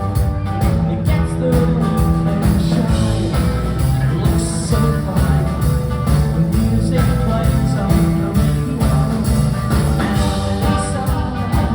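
Live band playing amplified rock music over a steady drum beat.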